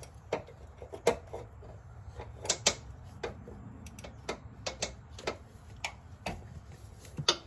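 Ratchet wrench clicking in short, irregular strokes, often two clicks at a time, with light metal clinks: the handle has room for only a couple of clicks per swing while loosening a fastener on the power steering line.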